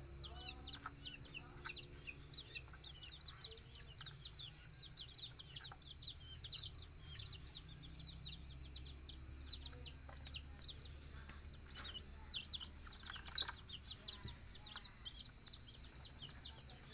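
Many small birds chirping in quick, high, downward-sliding calls that overlap throughout. Underneath are a steady high-pitched whine and a low hum.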